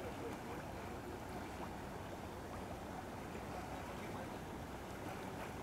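Steady churning of hot spring water bubbling up through a sulphur spring pool.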